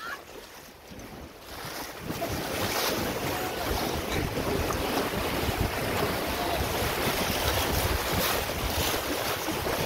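River water rushing and splashing around an inflatable raft, with wind buffeting the microphone. The noise is low at first, swells about two seconds in, then holds steady.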